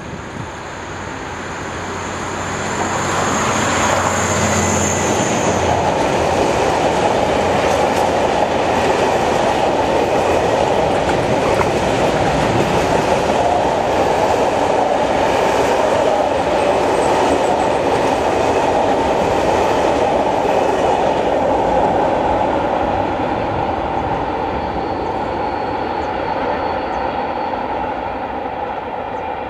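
Diesel locomotive D146 2016 passes with its engine running and a high whine. It is followed by a long string of covered freight wagons rolling by, wheels clattering on the rails, loudest midway and fading away near the end.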